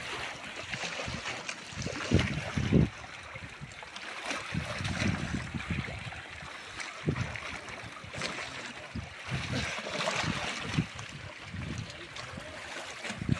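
Sea water splashing and washing around shoreline rocks, with gusts of wind buffeting the microphone.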